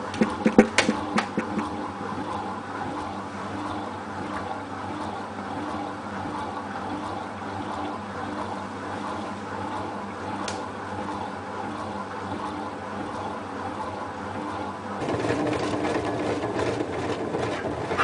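Hotpoint Ultima WT960 washing machine spinning towels with its door open: steady motor and drum noise. A few sharp knocks in the first second and a half, and about fifteen seconds in the sound becomes louder and rougher.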